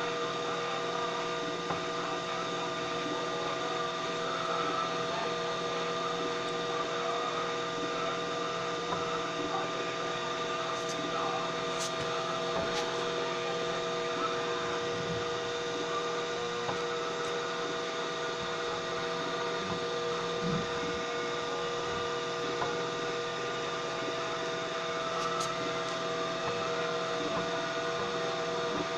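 A CNC machine running steadily: a constant hum with several held tones, with a few faint clicks around the middle and one near the end.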